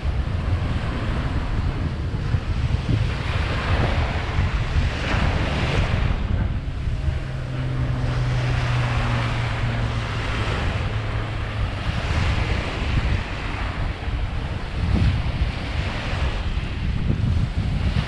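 Small waves breaking and washing up a sandy shore, swelling every few seconds, with wind buffeting the microphone. A faint low steady hum runs for about five seconds in the middle.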